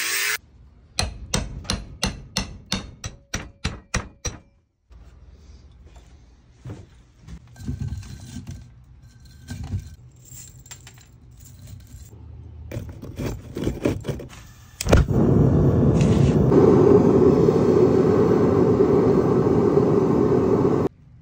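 A quick run of about a dozen sharp knocks, then quieter clinking and rustling of scrap copper wire being handled into a crucible. About fifteen seconds in, a metal-melting furnace starts a loud steady roar as the copper melts in its glowing crucible; the roar cuts off sharply near the end.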